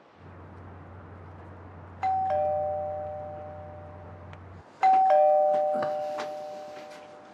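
Two-tone ding-dong doorbell rung twice, about three seconds apart, each time a higher note then a lower one ringing on and fading away.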